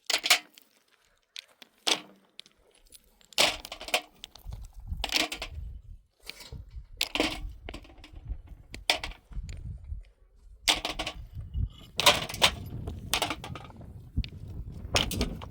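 A series of irregular knocks and scraping noises, some short and some drawn out, with a low rumble underneath from a few seconds in.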